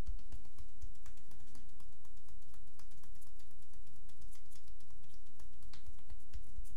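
Percussive massage (tapotement): hands rapidly striking bare shoulders and upper back in a fast, even run of light slaps and dull thumps.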